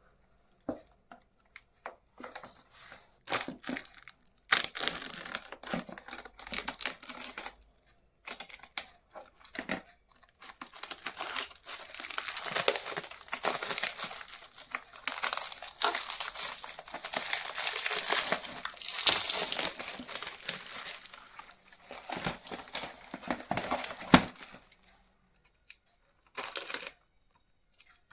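Keyboard packaging crinkling and tearing as it is handled and opened: scattered rustles at first, then a long stretch of near-continuous crinkling that dies away near the end.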